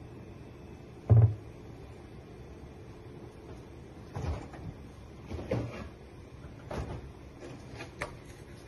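Knocks and bumps of kitchen work: one loud thud about a second in, then four softer knocks spaced roughly a second apart.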